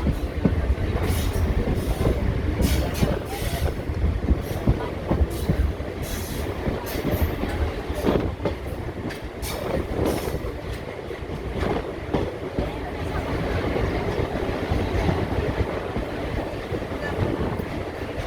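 ICF passenger coach running along the track: a steady rumble of wheels on rail, with scattered sharp clicks in the first half.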